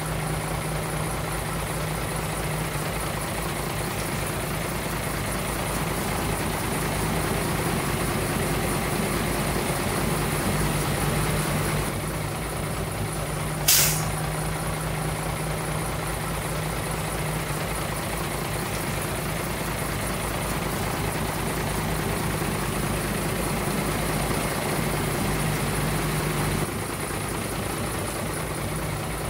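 Heavy dump truck's diesel engine running steadily, with one short, sharp air-brake hiss about halfway through.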